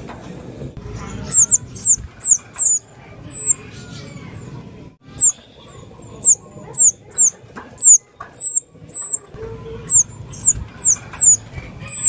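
Female minivet (burung mantenan) calling: a long series of short, high-pitched notes, each sliding down in pitch, repeated at about two a second with some in quick pairs, starting about a second in.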